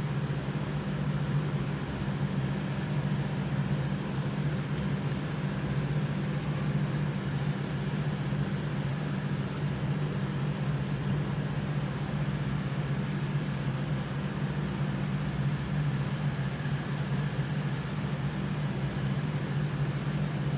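Steady low mechanical hum over an even hiss, unchanging throughout, like a motor or fan running.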